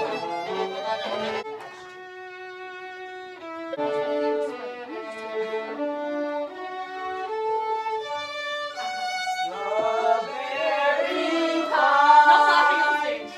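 Violins played together, bowing a tune in held notes that change every second or so, with short breaks between phrases. Voices join in near the end.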